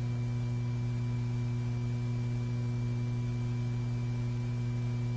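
Steady electrical hum on the soundtrack: a low drone with a few fainter, higher tones held over it, unchanging, with no gunfire.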